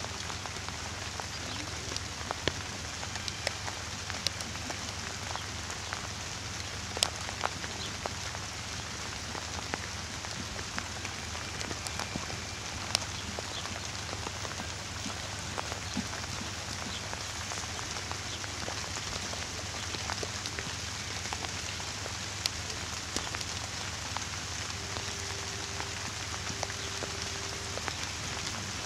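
Steady hiss with many scattered small ticks, with a faint held tone near the end.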